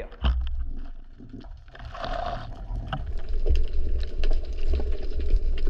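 Water noise picked up by an underwater action camera: a low rumble of moving water with scattered clicks and crackles, a short hiss about two seconds in, and busier water movement in the second half.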